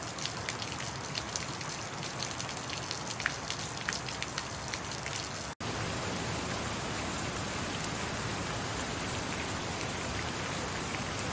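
Recorded rain ambience track: a steady hiss of rain with scattered crackling drops. It cuts out for a moment about halfway as one ambience track gives way to another, similar but smoother rain hiss, and stops abruptly at the end.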